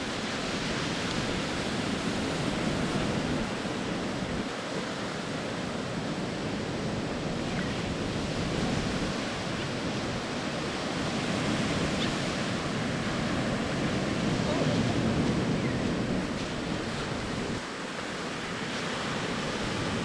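Ocean surf breaking and washing up on a sandy beach: a steady rush of noise that swells and eases every few seconds.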